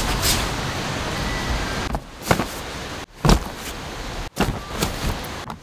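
Camping gear being handled and packed: several knocks and thuds of gear bags and a plastic storage box over a steady outdoor hiss. The sound breaks off abruptly a few times between short clips.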